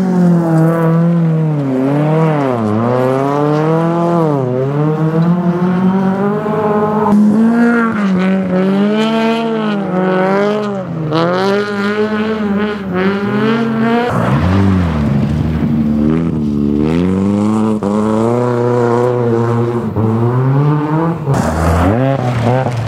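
Autocross race car engines revving hard through the gears, their pitch climbing and dropping again and again at each gear change and lift for the bends. Near the end a car slides through the gravel corner close by, with a brief spray of loose stones.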